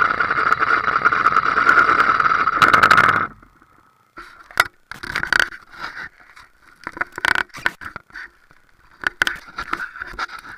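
BMW R1200GS Adventure's boxer-twin engine running, then switched off suddenly about three seconds in. After that come scattered short scrapes and knocks.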